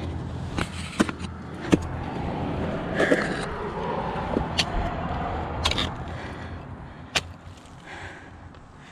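Ice climbing on a frozen waterfall: steel ice-tool picks and crampon points striking the ice, about six sharp, irregular hits over a steady low rumble.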